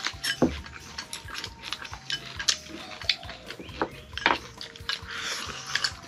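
Chopsticks clicking and tapping against porcelain rice bowls and serving dishes during a meal, in scattered sharp clicks a fraction of a second apart.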